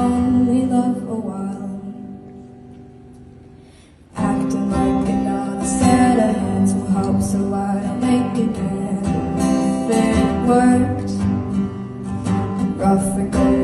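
Acoustic guitar strummed, its last chord ringing out and dying away over about four seconds. Strummed acoustic guitar music then starts suddenly and plays on steadily.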